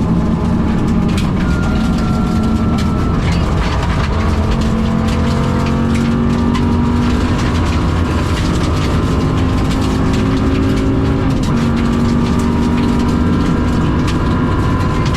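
Rally car engine running hard at high revs, heard from inside the cabin, with a bad misfire. The pitch climbs slowly through each gear and drops at shifts about four seconds in and again near eleven seconds, under steady dog-box gearbox whine and many sharp clicks and knocks.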